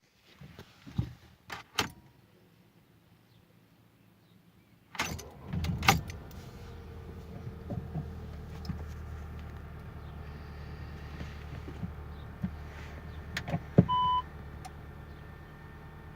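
Volkswagen Passat CC 2.0 TSI turbocharged four-cylinder petrol engine starting about five seconds in, after a few clicks, then idling steadily. A couple of sharp knocks and a short beep come near the end.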